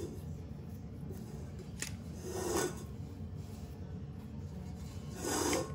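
Faint handling sounds of a tea towel and sticky bread dough being lifted out of a stainless steel bowl: a light click about two seconds in and two short rustles, the second near the end, over a low steady hum.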